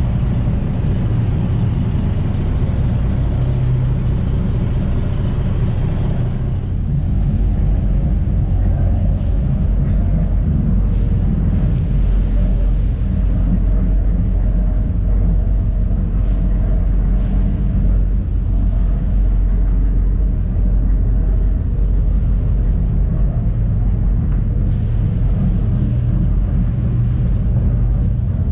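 A fishing boat's engine running steadily under way, a loud continuous low rumble.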